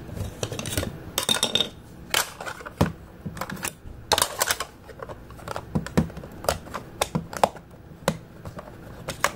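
Plastic clicks and taps from the battery cover being handled and fitted back onto the rear of a Jumper T18 Pro radio transmitter's case, in irregular short clicks.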